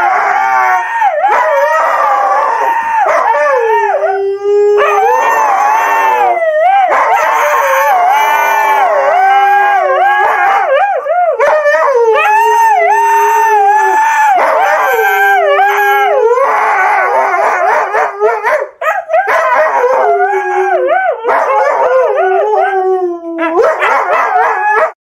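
Two huskies howling together in long, wavering, overlapping phrases, one voice high and one lower, with brief breaks between phrases.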